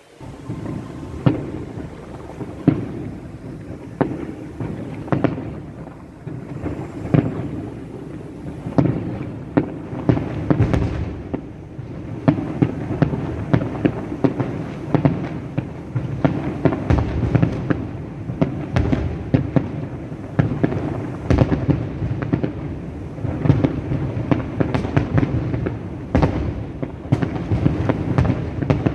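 Fireworks display: a dense, unbroken barrage of sharp bangs and cracks over a continuous low rumble, starting abruptly.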